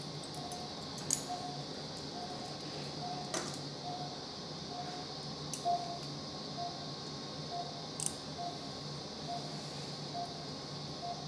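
Anaesthesia monitor beeping in time with the dog's pulse, a short high beep about twice a second, steady throughout. A few sharp metallic clicks of needle holders and forceps come through during suturing.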